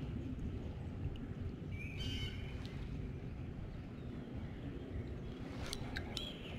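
Wild birds calling over a steady low rushing background: one harsh call about two seconds in, and a few short high chirps near the end.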